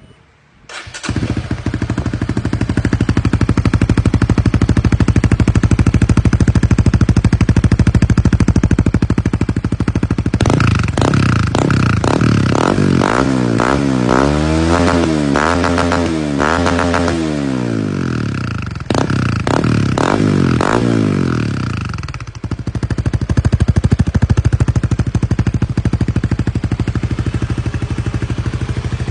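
Honda Winner X's 150 cc single-cylinder engine breathing through an aftermarket CBX exhaust. It starts about a second in and idles with a steady thrum, is blipped up and down repeatedly in the middle, gets two sharp throttle blips, then settles back to idle.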